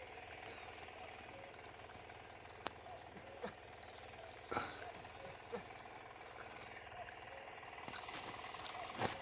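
Pair of oxen pulling a plough through a field: a faint steady background broken by a few short, sharp sounds, the loudest near the end.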